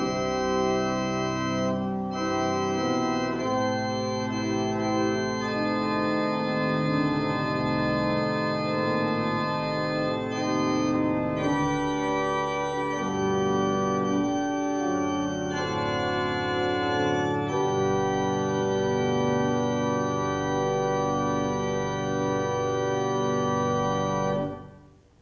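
Church organ playing slow, sustained chords that change every second or two. It closes with a final chord released near the end.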